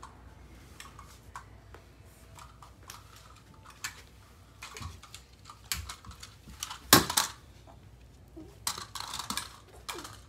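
Small hard plastic clicks and clatter from a toddler handling a plastic toy vehicle, with one sharp knock about seven seconds in.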